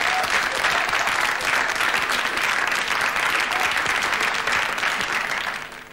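Studio audience applauding, a dense steady clapping that fades out near the end.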